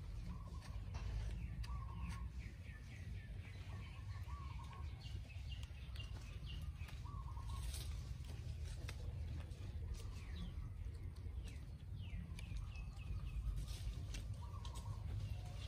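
Birds calling outdoors: a short call repeats every second or two, with bursts of quick falling chirps, over a steady low rumble.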